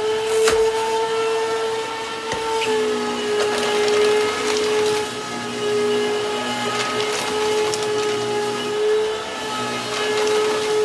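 Hoover WindTunnel bagless upright vacuum (model U8351-900) running with a steady motor whine, its pitch dipping slightly a little under three seconds in. Under the whine a lower hum keeps cutting in and out, with a few light ticks near the start. The owner says the motor sounds "awful dry" and not healthy.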